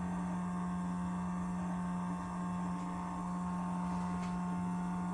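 Steady electrical hum, a low drone with a fainter higher tone above it.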